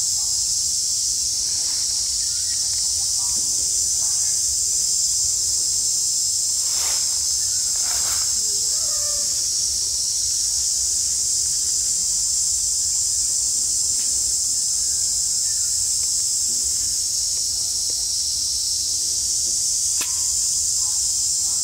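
A steady, high-pitched chorus of insects buzzing without a break, with a few faint clicks.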